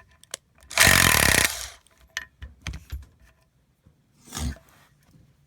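A 12V palm impact screwdriver running in reverse, hammering for about a second to back out a sheetrock screw driven into wood, followed by clicks and knocks as it is handled, and a brief second burst near the end.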